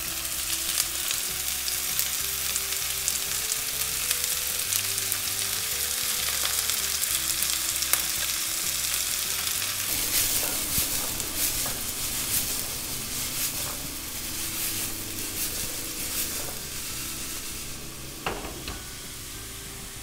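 Diced carrots and sliced peppers sizzling in hot oil in a wok, stirred and tossed. Sharp clicks of wooden chopsticks and the shaken wok come through the sizzle, thickest in the middle of the stretch. The sizzle eases toward the end.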